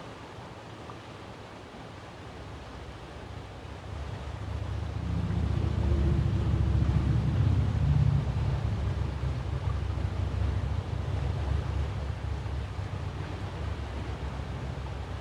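A low rumble that swells about four seconds in, peaks around the middle and slowly fades again, over steady outdoor background noise. There is no siren tone.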